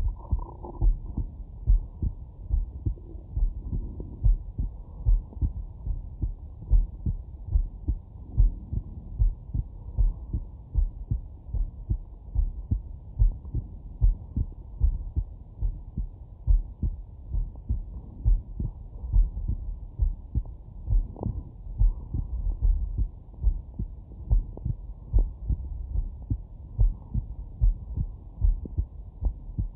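A human heartbeat picked up through a Stemoscope digital stethoscope: muffled, low thumps in a steady, even rhythm of a little over one beat a second.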